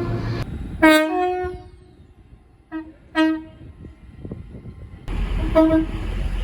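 Train horns sounding in short blasts, some stepping between two pitches: a blast about a second in, two quick toots around three seconds in, and another blast near the end over a low rumble.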